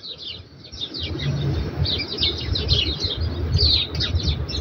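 Small birds chirping in many quick, high chirps, growing denser about two seconds in, over a low rumble.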